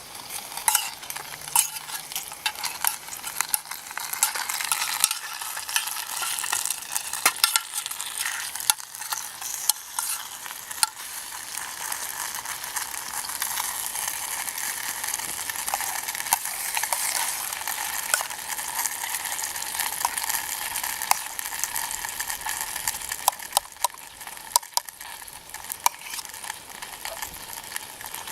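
Salisbury steak and meatballs frying in a metal canteen cup: a steady sizzle with frequent sharp pops and crackles.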